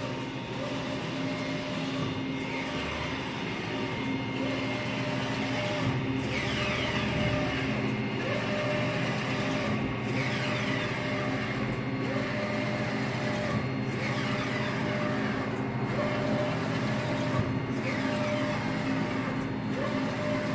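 Large sandstone 3D printer running steadily, its print carriage sweeping back and forth about once every two seconds, each pass with a brief dip and a falling whine followed by a held motor tone.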